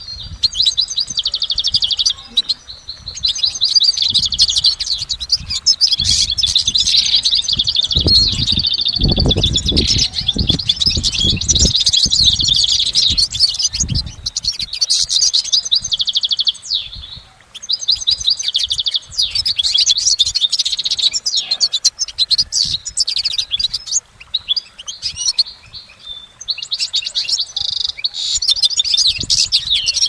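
European goldfinch singing: long runs of fast, tinkling twitter with short breaks, one about halfway through. A series of low thumps comes about a third of the way in.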